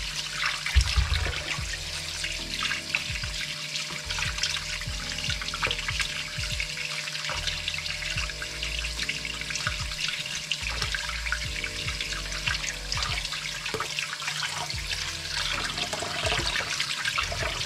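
Kitchen tap running into a plastic bowl of water in the sink, with the splashing and sloshing of hands rubbing raw turkey hearts and gizzards under the stream. A brief thump about a second in.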